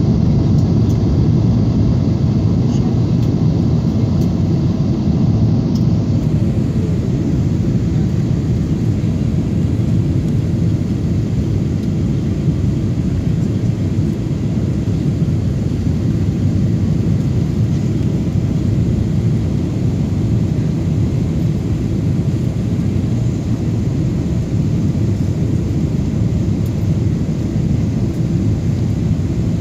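Steady low rumble of engine and airflow noise inside the cabin of a Boeing 777-300ER descending on final approach with its flaps extended.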